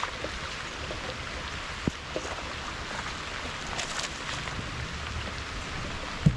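Light rain falling on the lake and boat, a steady hiss with scattered small ticks, and a dull knock near the end.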